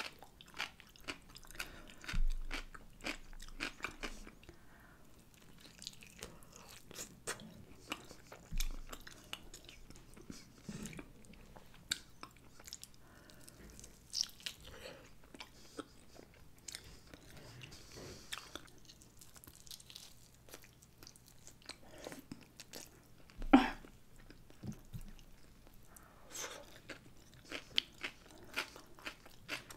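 Close-miked eating: crunchy bites and wet chewing of a pickle and barbecue pork rib, with many short clicks and smacks and one louder bite about two-thirds through.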